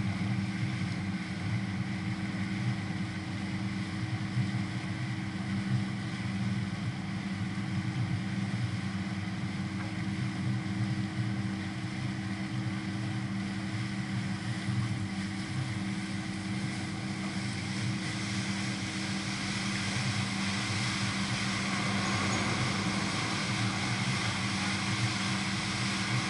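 Canal tour boat's engine running at a steady low hum, with a rushing noise over it that grows louder about two-thirds of the way through.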